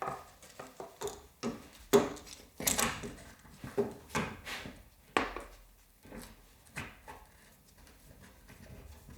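Irregular knocks, clatters and scrapes of a panel being bent and handled by hand, busiest in the first five seconds with the loudest knock about two seconds in, then tailing off.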